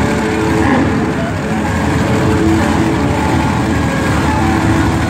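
Monster truck engines running, a loud, steady low rumble with shifting engine tones.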